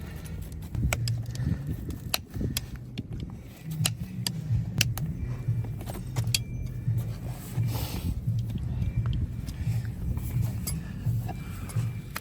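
Irregular sharp metallic clicks and clinks of a farrier's hand tools working on a horse's hoof, over a low steady rumble.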